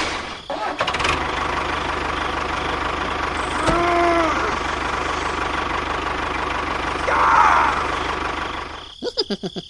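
A small engine starts about a second in and runs steadily with an even, fast low throb. A brief pitched squeal comes near the middle, and a louder rush follows a few seconds later.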